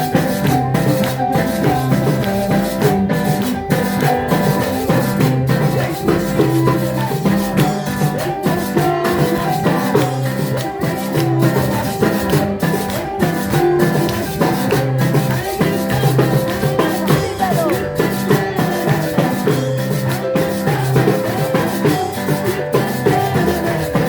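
Music with shaken maracas and drums keeping a steady beat.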